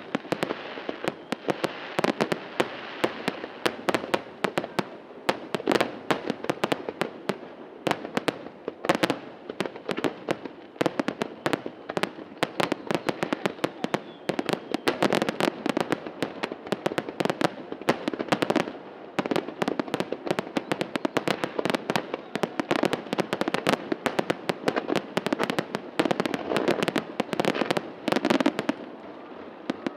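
Fireworks finale: a dense, rapid barrage of aerial shell bursts and crackling bangs over a continuous rumble.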